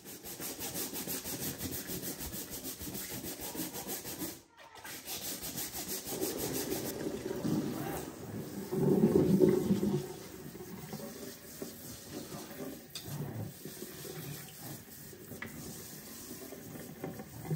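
Water from a pull-out sink sprayer splashing onto a metal mesh range-hood grease filter in the sink, rinsing off the soap and bicarbonate it was soaked in. The water noise stops briefly about four seconds in and is loudest around nine seconds.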